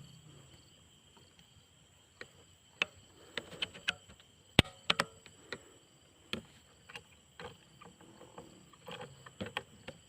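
Steady high-pitched chirring of insects, with about a dozen sharp irregular ticks and taps scattered through it.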